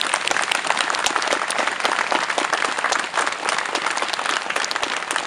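A large crowd applauding: many hands clapping densely and steadily.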